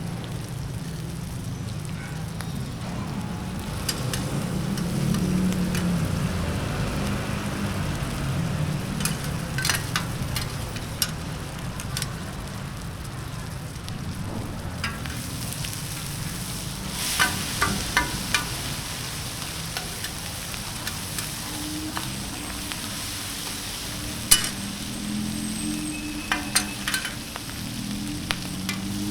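Food frying and sizzling in a wok during a stir-fry, with scattered sharp metal clinks and scrapes of the spatula against the pan. The loudest single clink comes about two-thirds of the way through.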